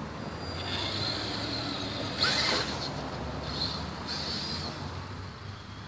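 Electric motor of a WLtoys 10428-A RC truck whining thinly as it drives across a wooden porch. A louder knock about two seconds in as it jumps off and lands, then shorter bursts of motor whine on the throttle.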